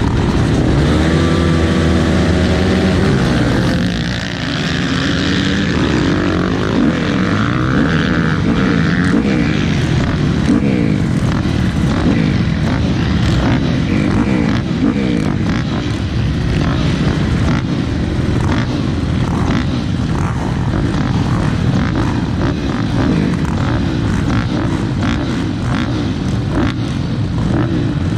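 Motocross dirt bike engines racing, revving up and down over and over as the bikes accelerate and shift gears.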